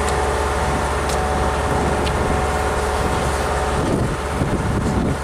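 An engine idling with a steady low drone, which drops away about four seconds in.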